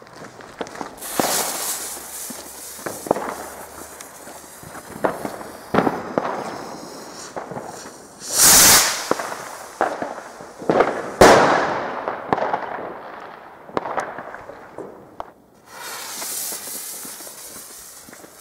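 Fireworks going off: many scattered bangs and crackles, with hissing rushes about a second in and again near the end, and two loud blasts about eight and eleven seconds in, the second fading away slowly.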